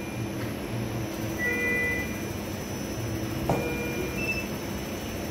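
Cardiac cath lab equipment: a steady machine hum with short electronic beeps of a few pitches recurring about every two seconds, and a single sharp click about three and a half seconds in.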